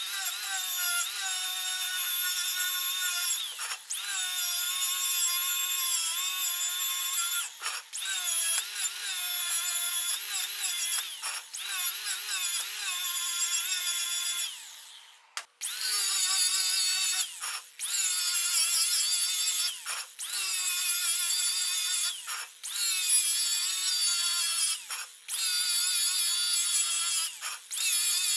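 Angle grinder running at speed with a steady high whine, scrubbing rust and mill scale off a steel wheel rim with a wire cup brush to clean it for welding. After a short break about halfway, it runs on a grinding disc against the rim's edge, with brief dips in level every second or two.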